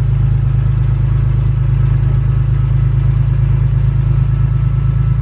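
BMW E46 M3's S54 inline-six idling steadily through a freshly fitted Status Gruppe V1 rear muffler on a catless exhaust, a low, even exhaust note with no revving. No exhaust leaks can be heard.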